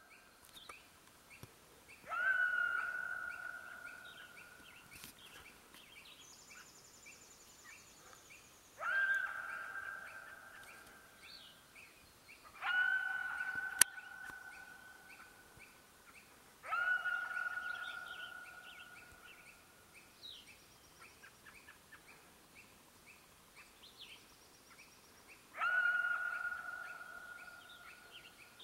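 Coyote calling five times, each call a sharp bark that drops into a held note and fades over a couple of seconds. Faint birdsong chirps in the background, and one sharp click about fourteen seconds in.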